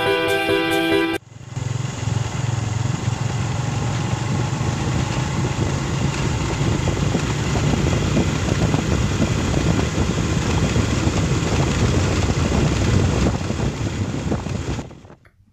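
Motorcycle engine running steadily while the bike rides along a road, heard from the rider's seat. A snatch of music comes first, and the engine sound cuts off abruptly near the end.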